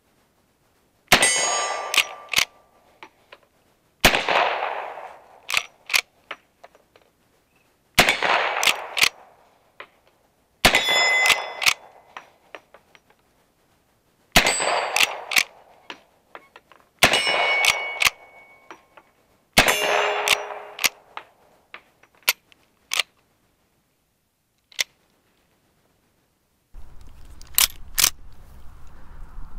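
Replica Winchester 1866 lever-action carbine firing seven shots a few seconds apart. Each shot is followed by the clacks of the lever being worked to chamber the next round, and several are followed by a short ring from a steel target being hit. Near the end there is wind on the microphone and a few clicks.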